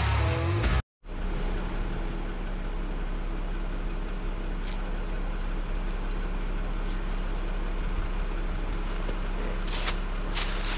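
Jeep Wrangler Rubicon's engine idling steadily, with a few faint knocks. A moment of guitar music cuts off about a second in, just before the idle starts.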